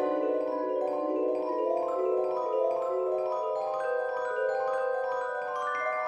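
Background music: a melody of short struck mallet-percussion notes, marimba-like, that steps higher in pitch near the end.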